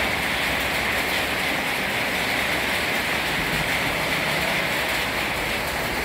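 Steady rain falling on a wet paved street: an even, unbroken hiss.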